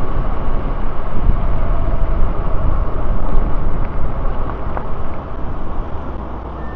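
Wind buffeting an action camera's microphone, with road rush, on an e-bike riding fast in a highway bike lane. The rushing dies away over the last couple of seconds as the bike slows to stop at a traffic light.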